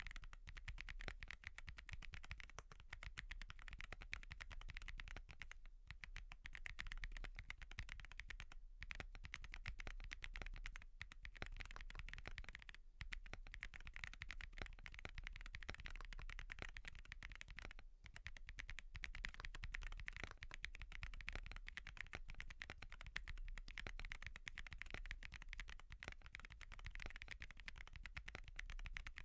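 Steady fast typing on a Wobkey Crush80 mechanical keyboard with Haimu Midnight switches and no IXPE switch pad: a dense run of keystroke clacks, broken by a few short pauses.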